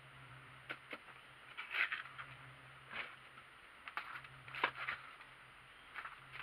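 Plastering trowel working mortar onto a window reveal: short scrapes and slaps of steel on wet render, coming irregularly, the loudest about two seconds in and again just before five seconds.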